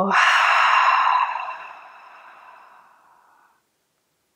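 A woman's long, audible exhale, a big sigh let out that starts loud and fades away over about three seconds.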